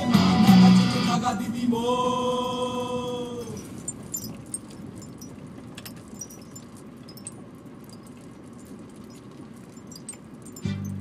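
Music with singing: a song ends on a held chord and fades out about three and a half seconds in. A quieter stretch with scattered faint clicks follows, and another piece of music starts near the end.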